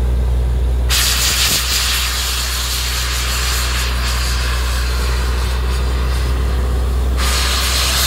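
Truck-mounted borewell drilling rig running steadily with a low drone, and about a second in a loud hiss of compressed air starts suddenly and keeps going.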